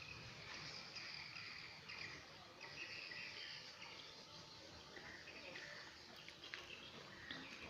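Faint rural outdoor ambience: short chirps come and go irregularly over a light steady hiss.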